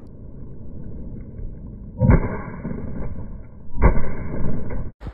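Two close shotgun blasts less than two seconds apart, each a sudden bang with a long loud tail, over a steady low rumble; the sound cuts off suddenly near the end.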